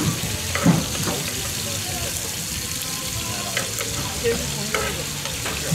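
Squid and baby octopus sizzling in butter on a large flat pan, a steady hiss. Metal tongs clack against the pan and the seafood a few times, loudest about two-thirds of a second in.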